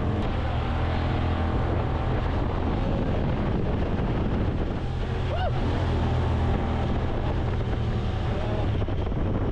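Engine of a Honda side-by-side utility vehicle running at a steady speed while driving, with wind buffeting the microphone.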